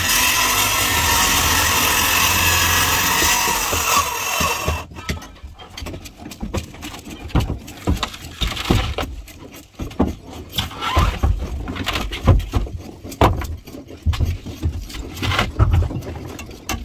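A loud steady machine noise runs for about five seconds and cuts off suddenly, then irregular knocks and heavy thumps follow as wooden boat parts are worked loose.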